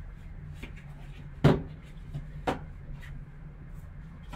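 Handling of a paperboard trading-card box and its lid: a dull knock about a second and a half in, a lighter knock a second later, and a few small taps, over a steady low hum.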